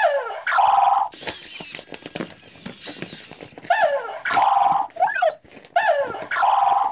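Red WowWee Robopet robot dog's electronic voice sounds, three times about every three seconds: each is a short chirp gliding up and down, then a steady buzzy tone of about a second. Faint clicks come in between.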